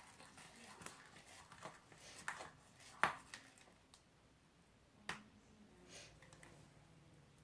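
A spoon clicking and tapping against a bowl while stirring clear glue and detergent into slime: a few scattered sharp clicks, the loudest about three seconds in.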